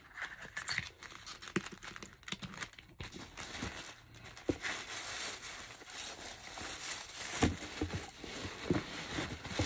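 Paper envelopes and packaging being handled: crinkling and rustling with small irregular taps and clicks, the rustling growing denser about halfway through.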